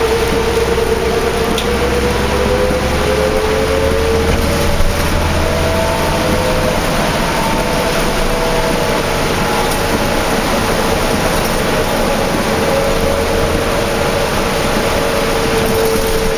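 Inside a 2004 New Flyer D40LF diesel bus under way: the Cummins ISL inline-six and ZF drivetrain running, with a whine that climbs over the first few seconds, levels off and rises a little again near the end as the bus's speed changes. Steady road noise and rain fill in underneath.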